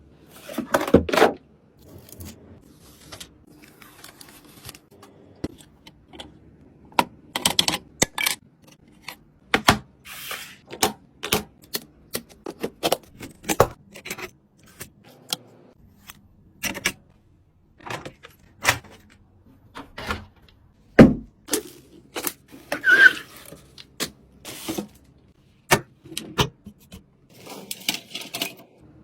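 Irregular clicks, taps and knocks of computer parts being handled and fitted together, with a few brief rustles; the sharpest knocks come near the start and about two thirds of the way through.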